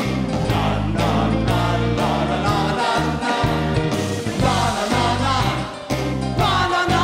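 Live rock band playing, with drums, electric guitars and bass under a steady beat of about two hits a second, and a male lead voice singing.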